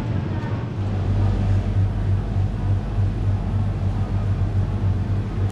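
A car driving: a steady low engine and road rumble.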